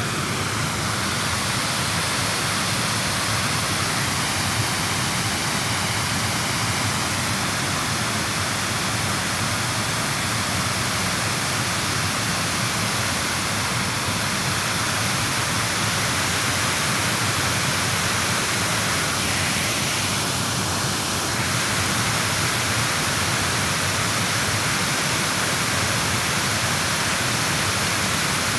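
Steady rushing of flowing river water: an even hiss with no breaks.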